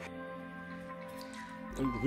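Soft background music with held notes.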